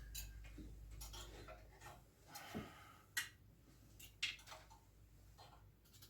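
Faint scattered clicks and knocks over a low hum, with two sharper knocks about three and four seconds in.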